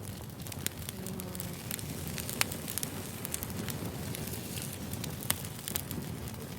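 Freshly lit fire crackling with many irregular sharp pops over a low rushing sound. Two pops are louder, about two and a half and five seconds in.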